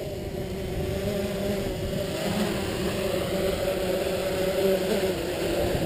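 Talon Hex hexacopter's six electric motors and propellers humming steadily as it descends and hovers low to land. The hum cuts off abruptly near the end as the craft touches down and the motors stop.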